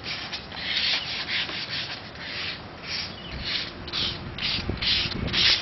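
Hand sanding on the steel lattice radio tower: rhythmic scraping strokes, about three a second.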